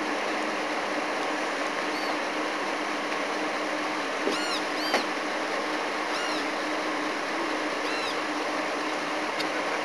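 Several short, high chirping animal calls, coming from about four seconds in, over a steady hiss with a faint low hum.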